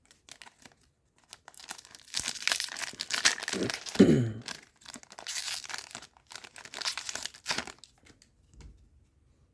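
A trading card booster pack wrapper being torn open and crinkled by hand, in uneven rustling bursts that are loudest about four seconds in and die away near the end.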